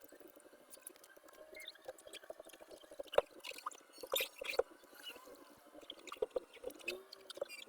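Faint, irregular wet clicks and rubbing from hands cleaning the rubber door seal of a front-loading washing machine.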